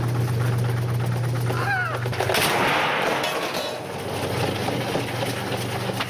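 Gunshots fired in quick succession into a washing machine's drum and cabinet.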